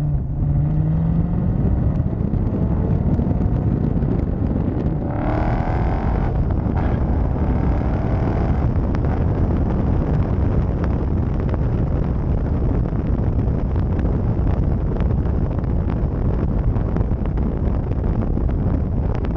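Dodge Challenger Scat Pack's 6.4-litre HEMI V8 with its mufflers deleted, heard from inside the cabin while driving: a steady loud exhaust drone with road noise, and a higher engine note for a few seconds around the middle.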